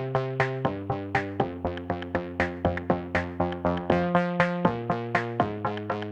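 Background electronic music: an even pulse of plucked synthesizer notes, about four a second, over held bass notes that change every second or two.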